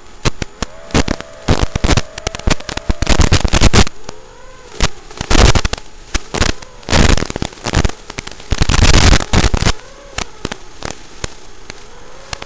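Crackling radio static from an analog FPV video receiver: irregular sharp clicks and bursts of hiss, several lasting a second or so, over a faint tone that wavers up and down in pitch.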